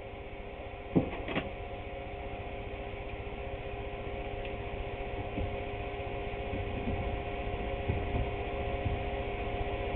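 Steady electrical hum with a few fixed tones, broken by two sharp knocks about a second in and a few faint taps later.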